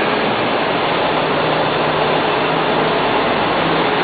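Steady, loud machinery noise with a faint low hum running under it.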